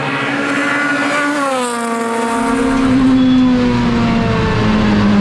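Race car engine running at high revs; the revs drop about a second in, then hold fairly steady.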